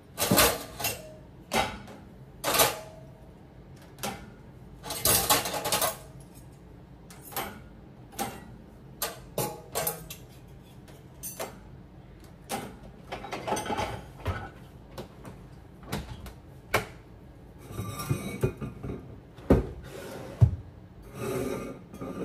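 Dishes, glasses and cutlery clinking and clattering in a run of separate knocks as a dishwasher is unloaded. A heavier thump near the end as the dishwasher door is shut.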